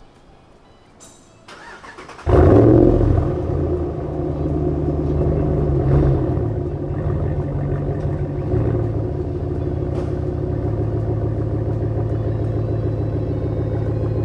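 A RAM 1500 pickup's engine cranking briefly, catching about two seconds in with a loud flare of revs, then settling into a steady idle.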